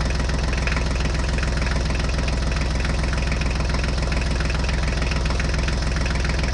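Diesel tractor engine idling steadily with a fast, even knock. It is a recorded engine sound laid over the toy tractor, not the model's own motor.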